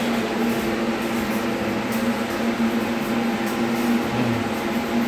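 Steady machinery hum: a constant drone with a steady hiss over it and a few faint ticks.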